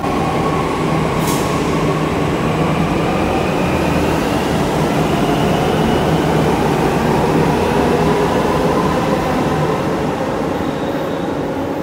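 Delhi Metro Blue Line train pulling out of the station: a steady rumble of wheels on rails with an electric motor whine over it, easing off near the end as the last car passes.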